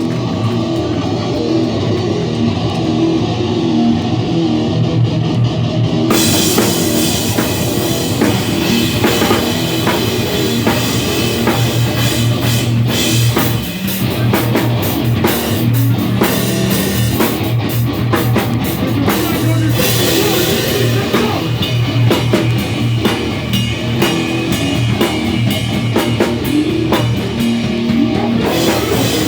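Live rock band playing loudly: guitar alone at first, then drums with cymbals and the full band come in about six seconds in and carry on together.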